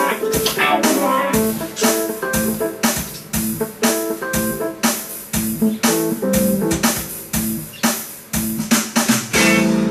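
Background music with a steady beat, ending on a long held chord near the end.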